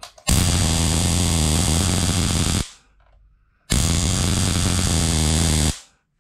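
Small Tesla coil firing twice: a loud, harsh electrical buzz lasting about two seconds each time, starting and stopping abruptly, with about a second of quiet between the two.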